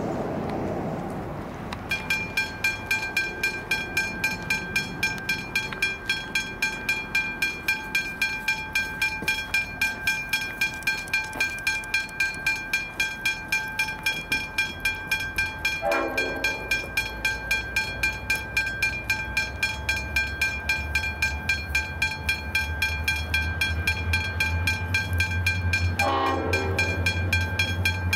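Westinghouse Hybrid Bell (Generation 2) level-crossing bell starting about two seconds in and ringing in rapid, evenly spaced strikes as the crossing activates. A diesel locomotive horn sounds twice, a short blast about halfway and a longer one near the end, while the low rumble of the approaching locomotive builds in the last third.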